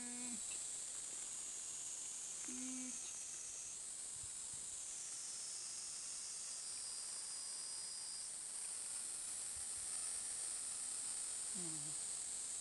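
Steady high-pitched chorus of cicadas, shifting slightly in pitch a few times.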